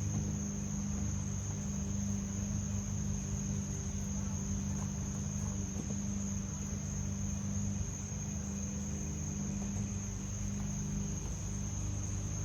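Crickets chirring in a steady high-pitched chorus that does not let up, over a steady low hum.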